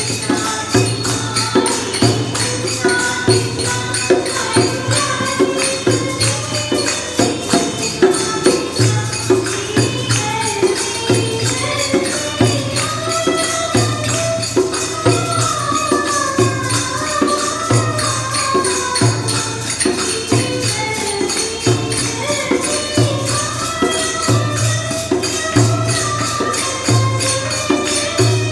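Devotional hymn sung to a steady beat of hand percussion with jingles, the melody line rising and falling over the rhythm.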